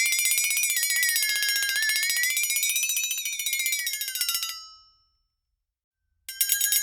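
A dinner bell rung frantically: a fast, unbroken clatter of strikes with a wavering pitch. It dies away about four and a half seconds in, and after a moment of silence starts again abruptly near the end.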